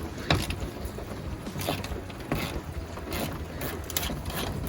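Irregular clicks and knocks of a wrench working a 10 mm bolt loose, with a steady hiss of rain behind.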